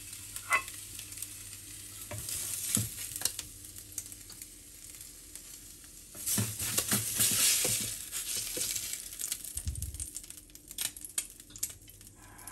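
Fish fillets sizzling on a hot oiled griddle pan, with short scrapes and taps of a spatula as they are lifted off onto a plate; the sizzle swells for a second or two about six seconds in.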